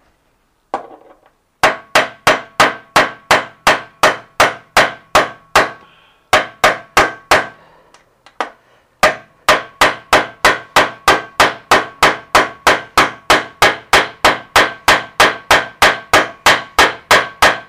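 Hammer blows on metal driving a new 6004 ball bearing into the spin bike's housing: rapid, even strikes at about three a second, each with a short metallic ring. The strikes come in runs, with brief pauses about 6 and 8 seconds in.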